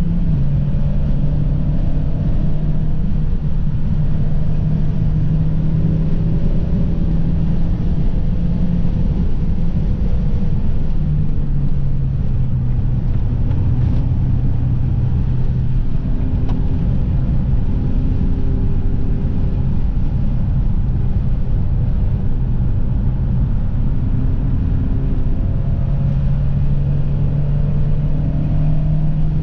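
Audi car's engine and road noise heard from inside the cabin while lapping a race circuit under hard driving. The engine note holds steady, drops lower about a third of the way in, and climbs again near the end.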